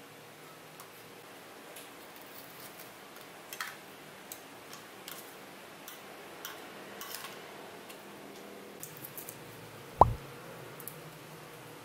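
Faint, scattered clinks and taps of a metal spoon and fork against a ceramic plate while eating, then a single loud thump about ten seconds in.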